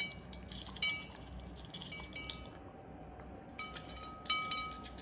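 Labradoodle puppy eating dry kibble from a stainless steel bowl: irregular metallic clinks against the bowl, several leaving a short ringing tone, the loudest right at the start, about a second in and about four seconds in.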